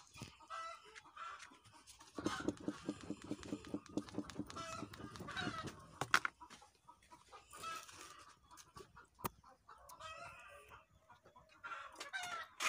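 Chickens clucking and calling, with a rooster crowing, and two sharp knocks about six and nine seconds in.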